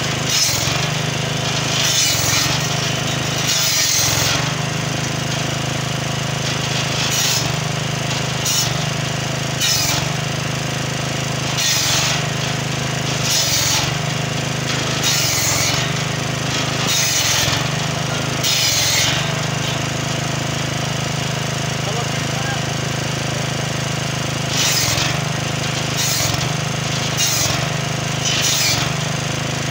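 Petrol-engine table circular saw: its small engine runs steadily while the blade cuts through black locust (acacia) logs one after another, each cut a short rasping burst, about a dozen of them at uneven spacing with a pause of a few seconds past the middle.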